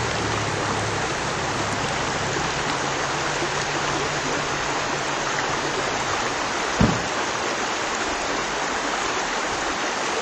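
Steady rushing noise over the faint low hum of a small Suzuki 4x4's engine crawling downhill over rocks, which fades out after about six seconds. A single thump about seven seconds in.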